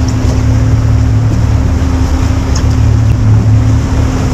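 Outboard motor of a center-console fishing boat running steadily with a low hum, under wind and water noise on choppy sea.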